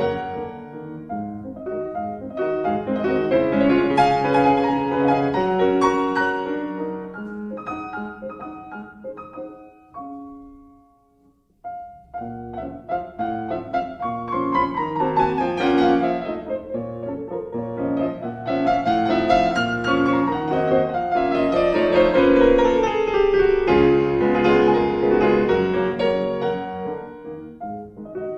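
Background piano music with falling runs of notes; it dies away briefly about eleven seconds in, then starts again.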